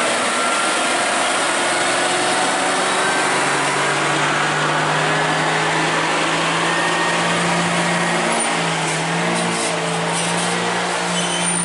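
Heavy truck's diesel engine running under load as it pulls a low-bed trailer loaded with a crawler crane: a steady drone that wavers slightly in pitch about two-thirds of the way through.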